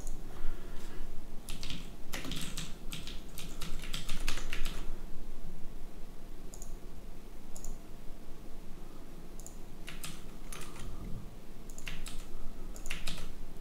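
Computer keyboard typing: quick runs of keystrokes for the first few seconds, a few single clicks in the middle, then another run near the end.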